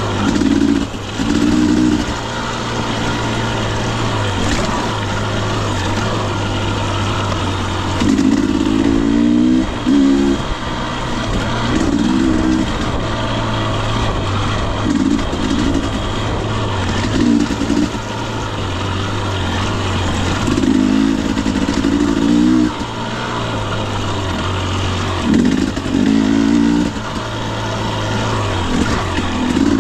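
Husqvarna TE250i two-stroke single-cylinder dirt bike engine running under load, with short bursts of throttle every few seconds over a steady low running note.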